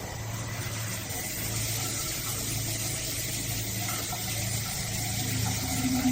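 Water spraying steadily from a rainfall shower head, with a steady low hum underneath.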